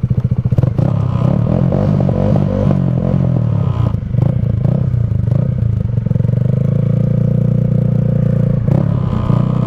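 Honda motorcycle engine running at low revs in snow, chugging unevenly for the first few seconds, then settling to a steadier note.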